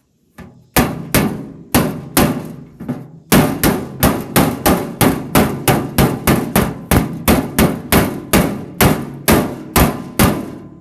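A hammer striking the metal of a truck tool box to knock out a dent: a few scattered blows, then a steady run of sharp blows at about three a second.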